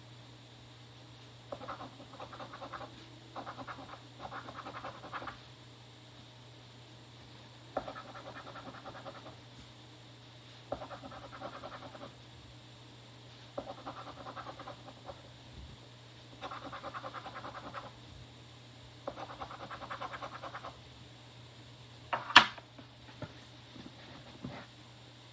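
Scratching the coating off a New York Lottery $3 Million Bonus Stars scratch-off ticket: about nine spells of quick back-and-forth strokes, each a second or so long, with short pauses between. Near the end comes a single sharp click, the loudest sound.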